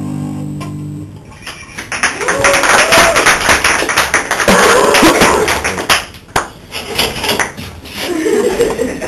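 The last guitar chord rings out for about a second, then a small audience claps and cheers with whooping voices for several seconds, dying down near the end.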